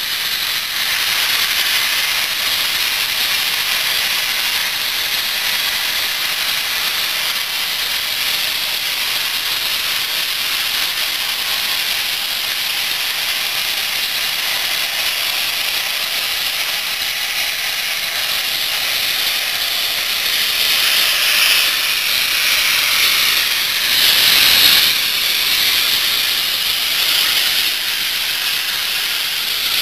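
Steady, loud hiss of steam blowing from the cylinder drain cocks of Southern Railway U Class 2-6-0 steam locomotive No. 1638, swelling louder twice about two-thirds of the way through.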